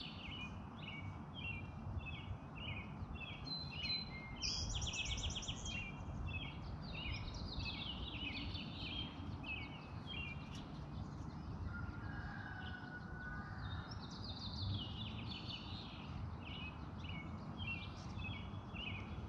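Birds chirping in a long run of short, high repeated notes, about two a second, with a brief buzzy trill about five seconds in, over faint steady low background noise.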